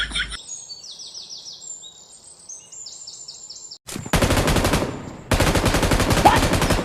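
Rapid automatic gunfire from the mobile game PUBG, in two long bursts in the second half, after about three seconds of high, bird-like chirps.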